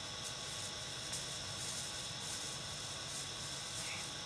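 Opened-up heat gun running with its heating coil powered: the small blower motor and fan give a steady airy hiss with a faint high whine and a low hum.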